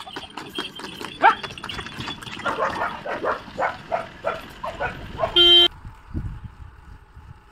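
A dog barking repeatedly, with short sharp knocks and clicks around it. A short, loud, steady-pitched beep comes near the end, then the sound changes abruptly to a quieter steady hum.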